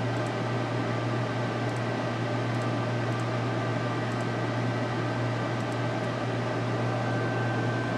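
Desktop computer's cooling fans running steadily, a constant whir over a low hum with a faint steady high tone, while the CPU runs a full-load stress test.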